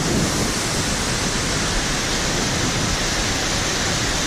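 Waterfall on a river: water falling and rushing in a steady, loud, unbroken roar of noise.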